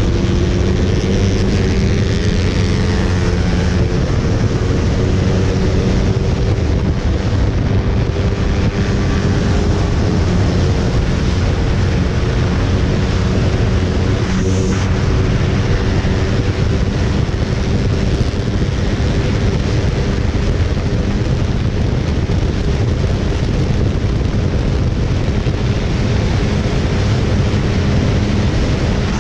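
Motorcycle engine running hard at high revs, its pitch climbing slowly over the first several seconds and then holding steady, under heavy wind rushing over the helmet microphone.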